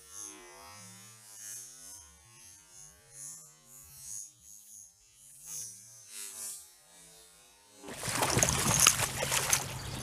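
Faint wavering hum, then about eight seconds in a loud burst of splashing and knocking as a just-landed smallmouth bass is handled at the kayak.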